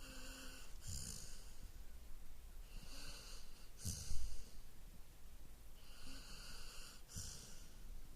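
Golden retriever snoring: three breaths about three seconds apart, each hissing and ending in a short low snort, the loudest about four seconds in.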